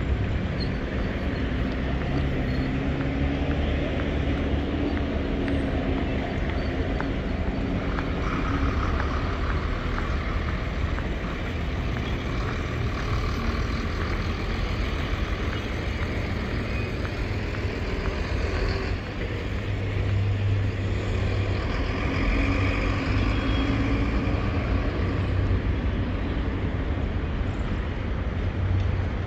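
City street traffic: motor vehicle engines running and passing steadily, with a deeper engine hum growing louder about twenty seconds in.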